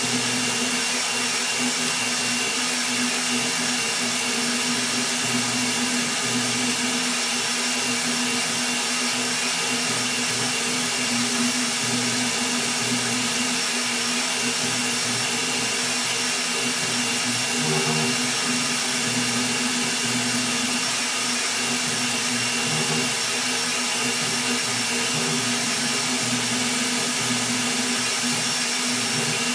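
Rat Rig V-Core 3 3D printer running a fast print: a steady whir and whine from its Delta blower cooling fan and stepper motors as the toolhead makes rapid high-acceleration moves, with no let-up.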